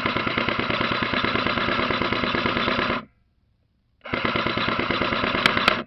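Airsoft gun firing on full auto: a long burst of fast, even rattling that stops about three seconds in, then a second burst about a second later, with two sharp clicks near the end of it.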